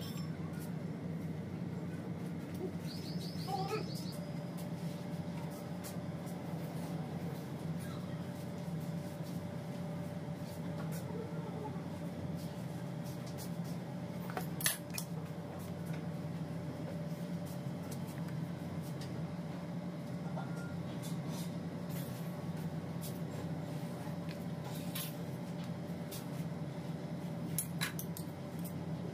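Steady low hum of room noise with a few light clicks and small handling sounds of kitchen tools; one sharper click about fifteen seconds in and a brief high chirp near the start.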